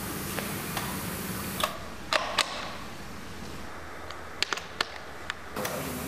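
Short sharp clicks from the quick-release coupling on a Kärcher HDS pressure washer's trigger gun as accessories are unlatched and snapped on. There are a few clicks about two seconds in and a few more in the second half, over a steady hiss.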